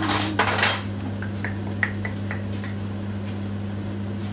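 Kitchen sounds at the stove: a brief rustle, then a handful of light clicks and clinks, over a steady low hum.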